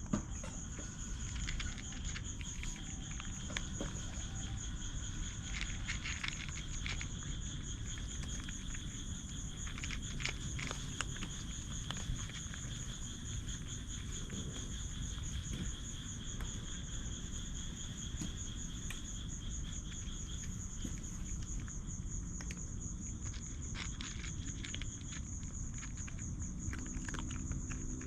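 Night insects trilling steadily: a high, fast-pulsing trill runs throughout, and a second, lower trill stops about two-thirds of the way through. Beneath them are a low rumble and scattered small clicks and rustles.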